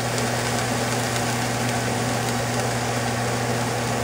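Steak searing in a lightly oiled pan, a steady sizzling hiss, over a strong steady low electrical hum.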